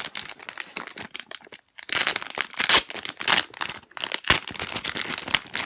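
Clear plastic packaging crinkling and rustling as hands open it to get a squishy toy out, in irregular rustles that are loudest about two to three and a half seconds in.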